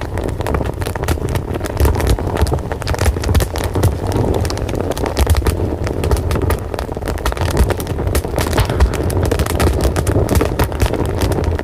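Wood fire burning, with a steady low rumble of flames and frequent irregular crackles and pops.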